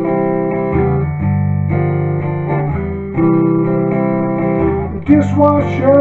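Steel-string acoustic guitar strummed in a blues accompaniment, ringing chords changing every second or so, with a harder strum about five seconds in.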